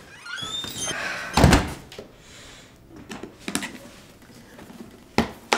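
A door squeaking on its hinges, then shutting with a heavy thud about a second and a half in, followed by a few light knocks.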